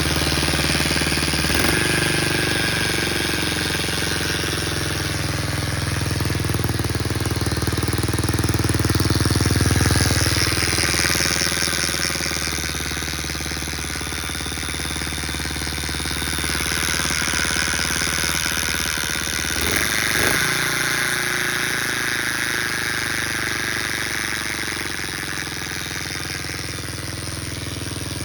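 Baja Motors DR50 mini dirt bike's small single-cylinder engine running, its speed rising and falling a little, with an annoying buzz coming out of the engine. The owner suspects a bent kickstarter pawl ramp that leaves the pawl rubbing against the gear.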